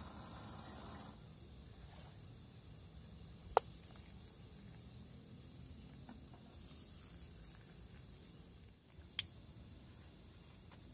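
Faint night ambience of insects chirping steadily, broken by two sharp clicks, one about three and a half seconds in and one about nine seconds in.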